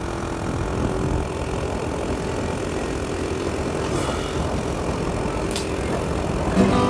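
A small motorcycle engine running steadily at idle. Music comes in near the end.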